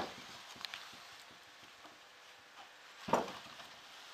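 Mostly quiet handling noise, with a few faint clicks and one short, louder noise about three seconds in.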